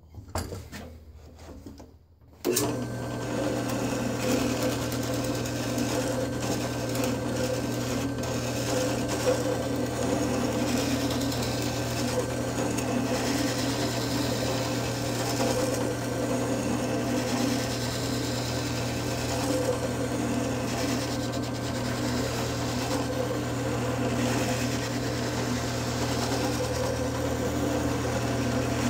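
A drill press switches on about two and a half seconds in, after a few handling knocks, and runs steadily with a small sanding drum in its chuck. The drum rasps against the edge of a plywood block pressed sideways against it.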